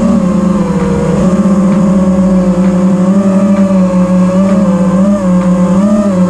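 FPV racing quadcopter's brushless motors (iFlight XING) whining steadily, the pitch wavering up and down with the throttle.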